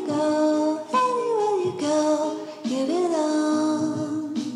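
Intro music with a high sung melody in short phrases about a second apart, several notes sliding down in pitch.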